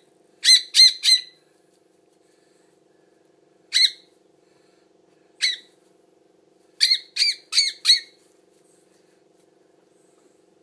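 Hand-fed baby bird giving short, harsh begging squawks for food: three quick calls near the start, single calls around four and five and a half seconds in, then four in quick succession.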